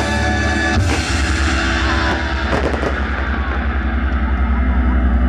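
Loud rock music over a concert sound system, with a few sharp bangs from the stage fireworks about a second in and again about two and a half seconds in. A fast, steady bass pulse runs under the music in the second half.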